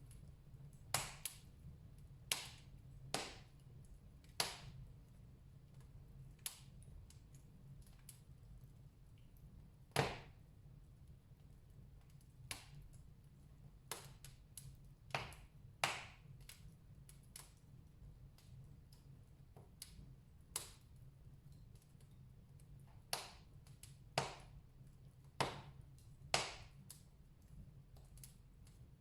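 Wood fire burning in a fireplace, crackling with irregular sharp pops and cracks, the loudest about ten seconds in.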